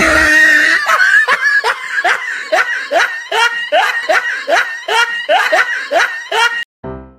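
A person laughing hard in rapid repeated bursts, which cut off suddenly near the end. Piano notes begin just after.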